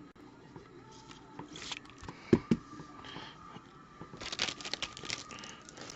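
Foil trading-card pack wrappers crinkling and cards being handled. There are two thumps close together a little over two seconds in, and a burst of crinkling near the end.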